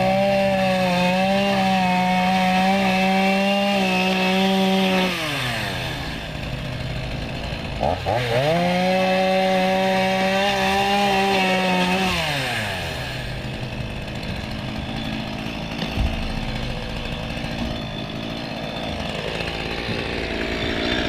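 Two-stroke Stihl chainsaw cutting wood: it runs at full throttle twice, for about four or five seconds each time, and drops back to a lower running speed after each cut.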